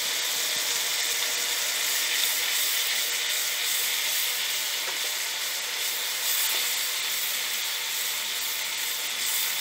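Onion and spice masala sizzling steadily in hot oil in a wok, stirred with a silicone spatula.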